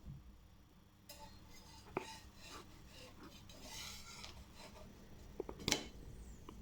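Kitchen utensils clinking and scraping against cookware: a few sharp clinks, a stretch of scraping in the middle, and the loudest clink near the end.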